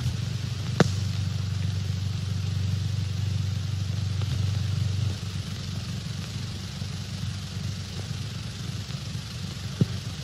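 Old optical film soundtrack noise: a steady low hum under an even hiss, with a couple of sharp clicks. The hum drops away about halfway through.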